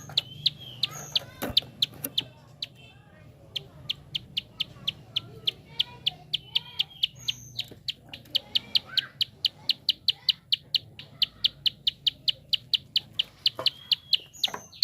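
Prinia (prenjak) giving its fast 'klik' call: sharp, high clicks about four or five a second, with a brief pause about three seconds in. A few short, higher chirps are mixed in.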